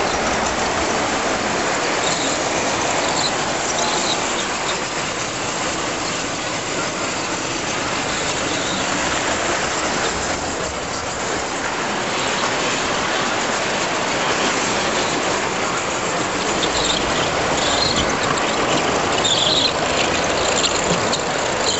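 Standard Gauge tinplate toy train running on three-rail track: a steady rolling rattle of wheels and motor, with a few brief high squeaks.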